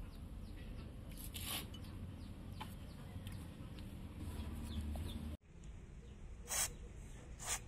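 Two short hisses of aerosol spray, likely rust penetrant squirted from a can with a straw onto a rusty engine flywheel hub, near the end. Faint bird calls sound in the background.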